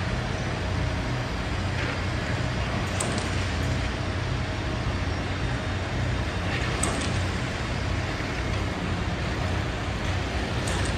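Steady city traffic noise: a low engine rumble under a constant wash of road noise, with a few faint high ticks.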